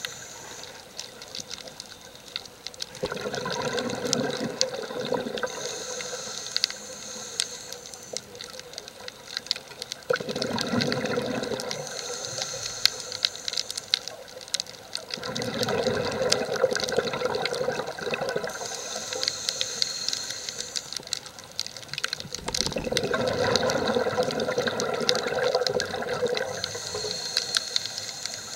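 Scuba diver breathing through a regulator underwater: four bubbling exhales a few seconds apart, each followed by the hiss of an inhale, with many small clicks throughout.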